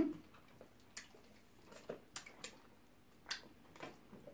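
Close eating sounds: a scatter of faint wet smacks and squelches from chewing and from fingers scooping pounded yam through slimy ogbono soup.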